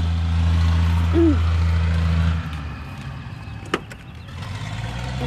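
Truck engine idling with a steady low hum that drops away about halfway through. There is a brief low vocal sound about a second in and a single sharp click a little later.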